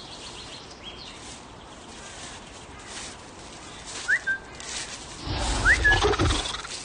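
Faint outdoor ambience with two short whistled chirps about a second and a half apart, each a quick upward glide followed by a brief level note. A little over five seconds in comes a low growl from the dinosaur, the loudest sound here.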